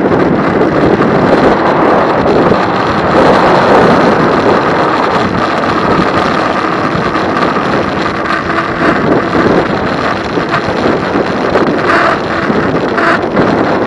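Wind rushing over the microphone of a camera carried on a moving e-bike, a loud steady rush of noise.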